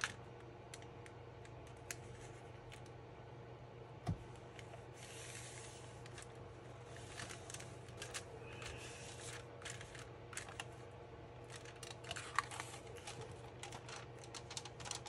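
Faint handling of a paper envelope booklet with clear plastic windows: scattered light ticks and crinkles, with spells of rustling as the paper and acetate are bent and pressed, and a soft knock about four seconds in.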